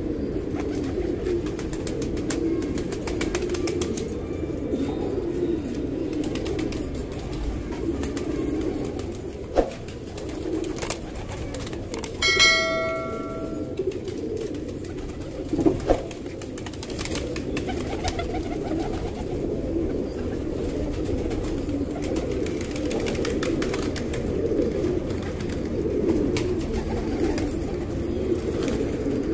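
A flock of domestic pigeons cooing continuously. About twelve seconds in, a short electronic chime sounds, and there are a couple of sharp knocks.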